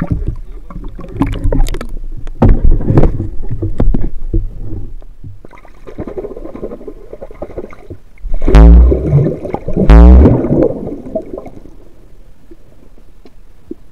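Water splashing and sloshing around a speargun-mounted action camera at the surface, then muffled underwater sound as it goes under, with two loud rushing bursts about a second and a half apart, each falling in pitch, before it fades to a low hiss.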